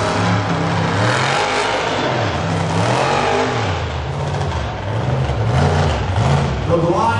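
Mega truck's engine revving hard in repeated surges, its pitch climbing and dropping several times as the truck drives through the dirt.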